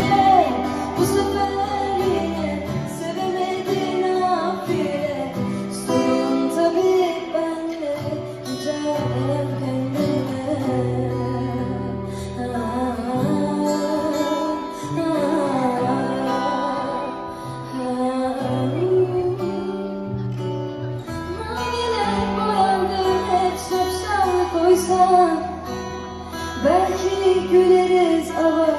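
A woman singing live with acoustic guitar accompaniment over a steady bass line, amplified through the hall's PA and heard from the audience.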